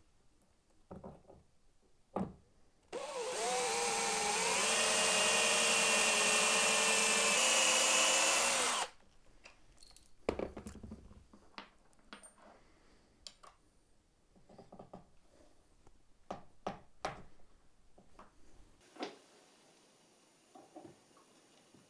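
Cordless drill running for about six seconds, boring a 3 mm pilot hole into the wooden workbench top through a metal drill-bit guide. Its whine rises briefly as it starts, then holds steady and stops abruptly. Light clicks and knocks of handling the guide and tools come before and after.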